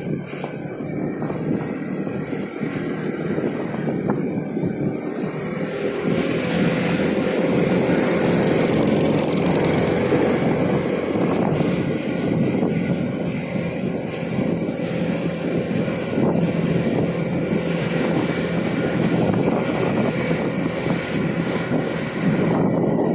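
Car driving slowly along a town street, heard from inside the car: a steady mix of engine and tyre noise that grows louder about six seconds in.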